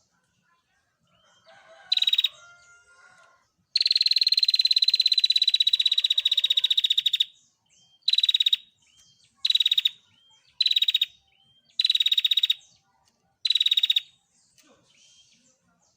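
Female prinia (prenjak) giving its rapid, rattling 'tir' trill calls, all at one high pitch. A short burst comes about two seconds in, then one long trill of about three and a half seconds that drops slightly in pitch, then five short bursts about a second apart.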